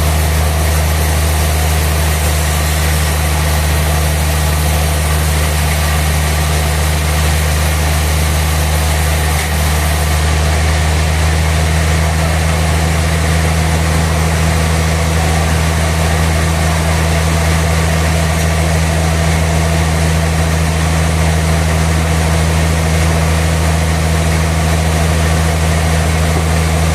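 Sawmill machinery running steadily: a constant, loud, low engine-like drone with no rise or fall in load.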